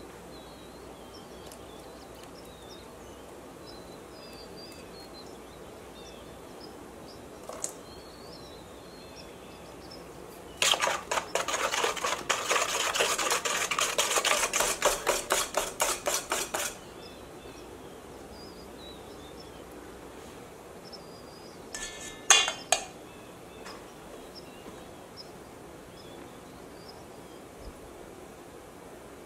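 Wire whisk beating a liquid egg and butter mixture in a stainless steel bowl: a quick run of metal strokes, about five a second, for some six seconds near the middle. A couple of sharp metal clinks follow later.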